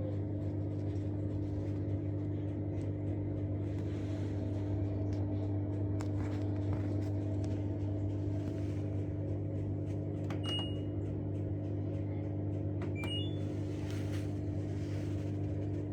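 Steady electrical hum, with a couple of short electronic beeps about ten seconds in and a quick rising run of beeps around thirteen seconds, typical of an LG washing machine's control panel.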